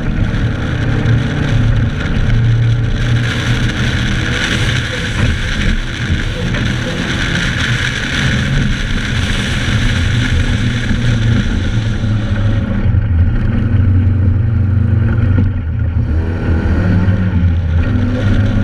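Joyner 1100 Sandviper sand rail's engine running steadily under load while driving over dune sand, heard from on board with a rushing noise over it. The rushing eases about two-thirds of the way through, and the engine carries on.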